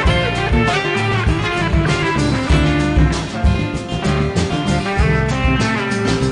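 Background music track led by guitar, with a steady beat.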